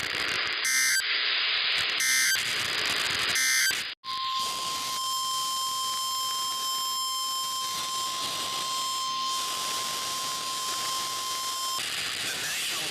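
Weather radio broadcast over steady radio hiss: three short bursts of EAS digital data, about a second apart. Then, after a brief dropout, the steady 1050 Hz NOAA Weather Radio warning alarm tone sounds for about eight seconds, signalling that a new warning follows.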